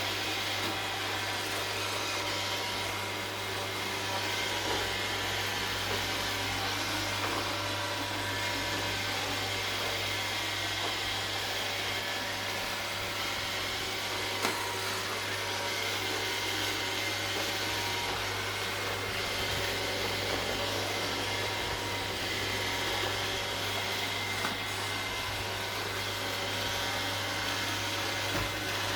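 iRobot Roomba 780 robot vacuum running: a steady motor and brush whir with a few faint knocks along the way.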